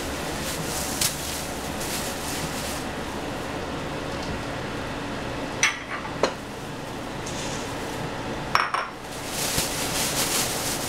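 A few sharp clinks of dishes and a steel bowl on a tiled counter, with a plastic bag crinkling near the end, over a steady background hiss.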